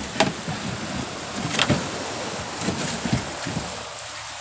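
Water splashing and rushing along the hull and bamboo outrigger of a small banca under way, with wind noise and a few sharp knocks or splashes.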